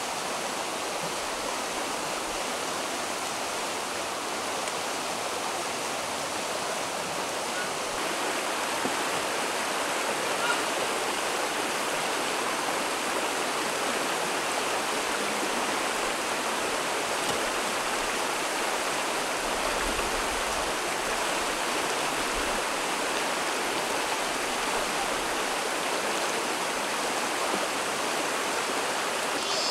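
Shallow stream running over rocks: a steady, even rush of water, with a couple of faint knocks.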